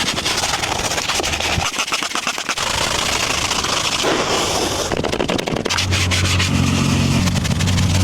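Soapy scrubbing on a car's body: a steady rubbing with fine crackling of foam. A low machine hum joins about six seconds in.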